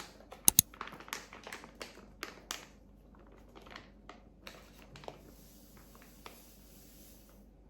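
Light clicks and taps of small objects being handled, several in quick succession in the first three seconds, with two sharper clicks about half a second in, then only a few scattered taps.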